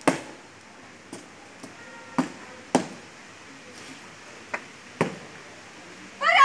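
Boots striking a wet concrete parade ground during foot drill: a loud stamp at the start, then a run of sharp footfalls about half a second apart and two more stamps later on.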